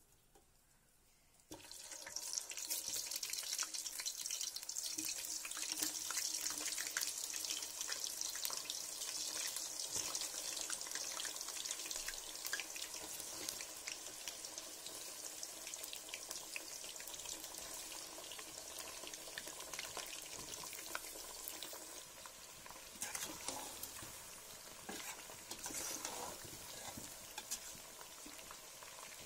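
Potato slices dropped into hot oil in an aluminium pot, setting off a sudden loud sizzle about a second and a half in: dense crackling and spitting that runs on steadily and eases off somewhat near the end as the potatoes fry.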